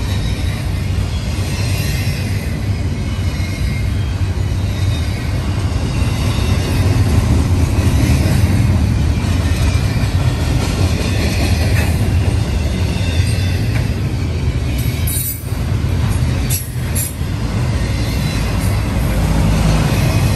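Double-stack intermodal train's well cars rolling past close by: a loud, steady rumble of steel wheels on the rails, with a faint high wheel squeal over it.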